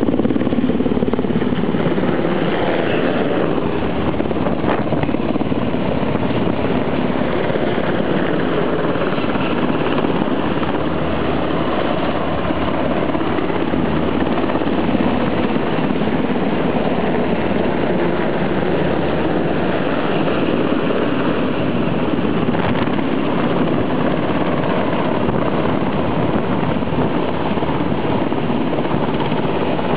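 UH-60 Black Hawk military helicopters flying overhead, a steady loud rotor and turbine noise that does not let up.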